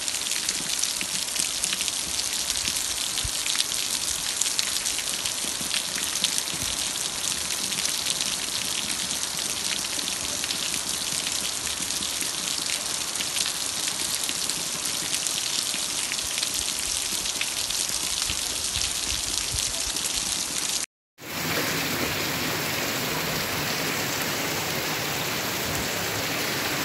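Steady rain falling on a street and off a roof edge: a dense hiss speckled with many fine drop clicks. About 21 seconds in it cuts out for a moment and picks up again as another recording of steady rain.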